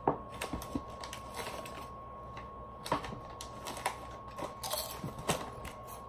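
Crinkling of a plastic potato chip bag as hands reach in and pull chips out, with crunching of chips being bitten, heard as scattered sharp crackles and clicks.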